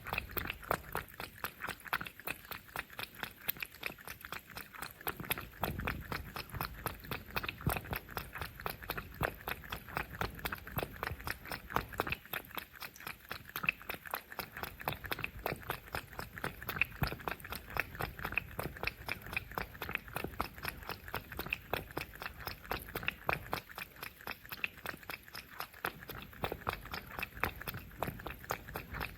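Cats chewing and crunching their food up close: a steady run of quick, sharp crunches, several a second.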